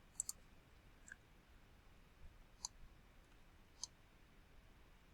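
Faint computer mouse clicks over near silence: a quick double click at the start, then three single clicks spaced a second or more apart.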